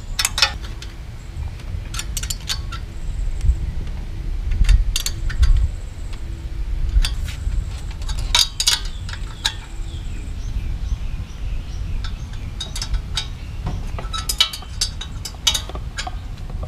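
Scattered metal clicks and clinks of hand tools and exhaust fittings as a new chrome silencer is tightened onto a Honda CG125 motorcycle.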